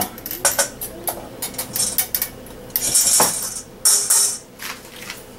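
Stainless steel mixing bowls and a metal utensil clinking and knocking together as beaten egg and milk is poured into the flour: a string of sharp, irregular clinks.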